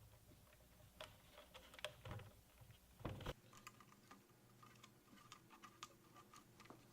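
Faint scattered clicks and taps of small parts being handled, with one louder knock a little after three seconds in.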